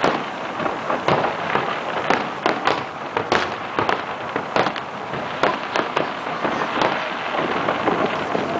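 Fireworks display: shells bursting one after another at irregular spacing, about two sharp bangs a second.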